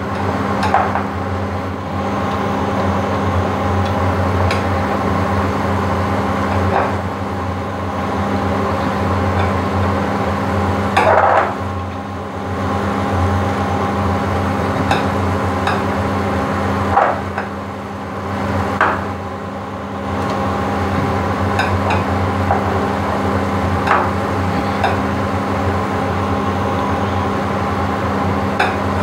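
Water at a rolling boil in a stainless steel saucepan on an induction cooktop, over the cooktop's steady hum. A metal ladle knocks against the pot every few seconds while minced pork is stirred in.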